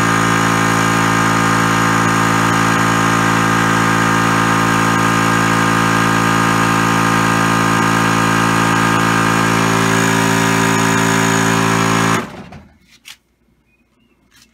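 Yong Heng water-cooled high-pressure air compressor running steadily as it fills an air gun, then shutting off suddenly about twelve seconds in.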